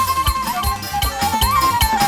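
Batak traditional music played by a band: a wind instrument carries a wavering, ornamented melody over a steady, quick drum beat.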